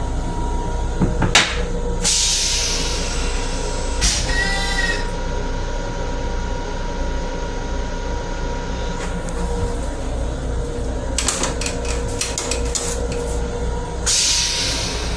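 Long Island Rail Road M7 electric railcar running, heard from inside its small restroom: a steady low rumble under a constant hum. A few sharp clicks come about a second in and again late on, and two short hisses come at about two seconds and near the end.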